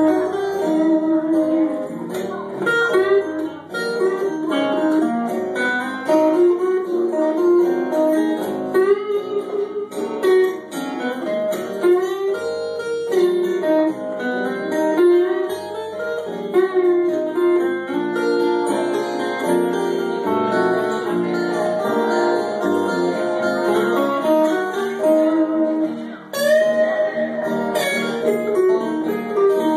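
Live guitar trio playing: acoustic guitars strumming under a picked melody line, with no singing heard.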